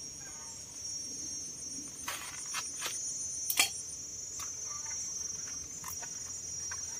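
Steady high-pitched chirring of insects, with a pulsing trill above it, and several short sharp clicks and taps of a knife as a banana blossom is cut and peeled, the loudest click about three and a half seconds in.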